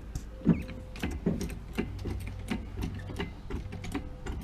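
Irregular light metallic clinks and knocks, a few each second, from a wheel being handled and fitted onto a car's wheel hub.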